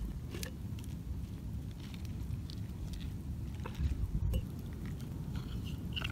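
Open wood campfire under a cooking pot, crackling with scattered light pops and clicks over a steady low rumble of wind on the microphone.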